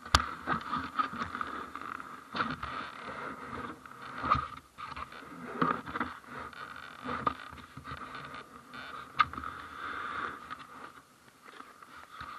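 Irregular scraping and crunching in snow that swells every second or two. A sharp knock right at the start is the loudest sound, and a few fainter knocks follow.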